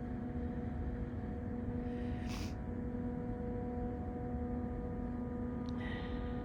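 Steady engine drone with a constant low hum and rumble, with a short rushing burst about two seconds in and a brief high click near the end.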